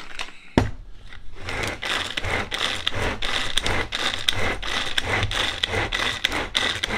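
A hand-pulled food chopper chopping apple pieces, its cord pulled again and again in a repeated scraping whirr about twice a second. About half a second in, the chopper jar is set down on the stone counter with one sharp knock.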